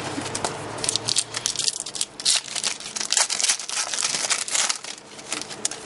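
Foil wrapper of a 2010-11 Upper Deck Artifacts hockey card pack being crinkled and torn open by hand. A dense run of sharp crackles starts about a second in and thins out near the end.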